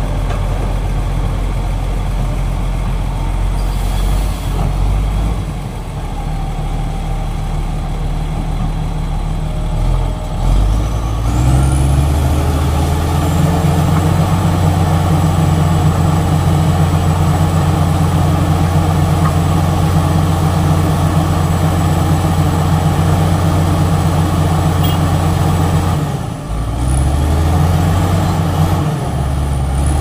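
Heavy diesel engines of a mud-bogged Komatsu D85ESS bulldozer and a SANY SY215C excavator working together to free it. About eleven seconds in the engine note steps up to higher revs with a high rising whine and holds under load; it drops briefly near the end, then revs up again.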